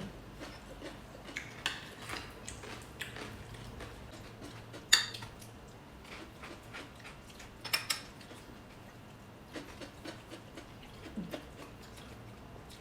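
Cutlery clinking against plates and bowls during a meal: scattered light clicks, with a sharp clink about five seconds in and a quick double clink nearly three seconds later.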